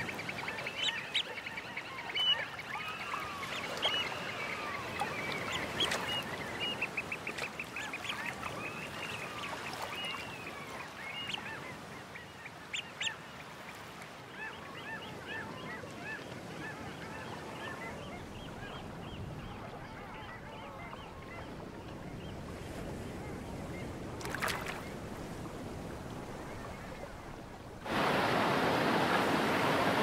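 Ducks and other waterbirds calling over the steady wash of the sea. The calls are many and short at first, then give way to a run of repeated rising-and-falling calls. About two seconds before the end it cuts suddenly to the louder rush of waves breaking on the shore.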